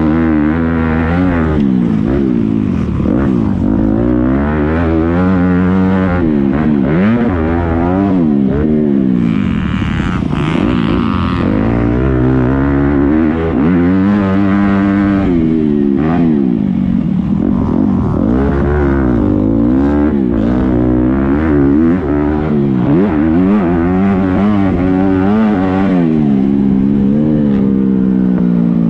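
Motocross dirt bike engine heard close up from on board, revving up and falling back over and over as the rider accelerates, shifts and rolls off through the track's jumps and turns.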